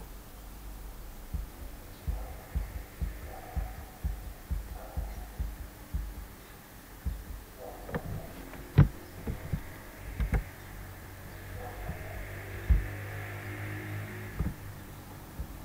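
Irregular soft low thumps and a few sharp clicks, the loudest click about nine seconds in, over a low hum that comes up in the second half.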